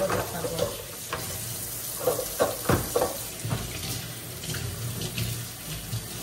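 Kitchen tap running into a stainless-steel sink as plastic food containers are rinsed under the stream. There are a few light knocks of dishes being handled about two to three seconds in.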